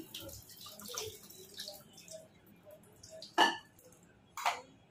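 Water dripping from a steel colander of freshly rinsed, drained pasta into a sink, the tap now off. Two sharp knocks stand out about three and a half and four and a half seconds in.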